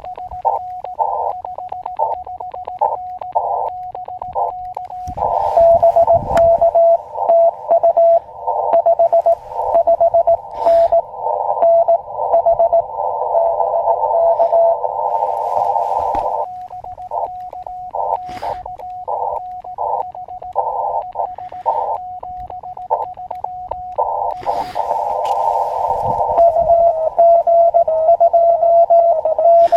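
Elecraft KX2 transceiver sending and receiving Morse code: a clean keyed sidetone of dots and dashes as the operator sends, alternating twice with a fainter, slightly lower-pitched reply tapping out within a narrow band of receiver hiss. A few sharp clicks fall in between.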